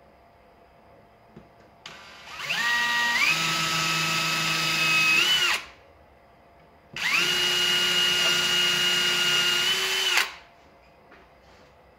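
Cordless DeWalt drill running twice, a 3 mm metal bit boring pilot holes for a bracket into the underside of a stone resin basin. Each run is a few seconds of motor whine that rises as it spins up, the first in steps, then holds steady and stops.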